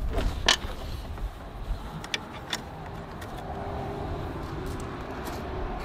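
A motor vehicle running with a steady low rumble, with a few sharp clicks and taps in the first few seconds.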